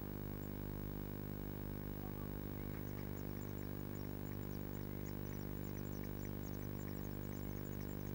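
Blue tit nestlings giving rapid, very short high begging cheeps. They start about three seconds in and grow denser, the sign that a parent is arriving with food. Under them runs a steady low hum.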